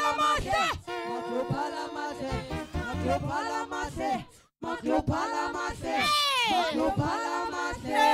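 Gospel singing, the voices sliding between notes in runs. The sound cuts out for a split second about halfway through.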